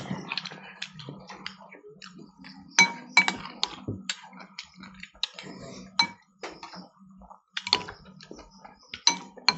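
Metal spoons scraping and clinking against glass bowls as food is scooped up, with a series of sharp clinks, several of them ringing briefly, the clearest about three seconds in, around six seconds in and near the end.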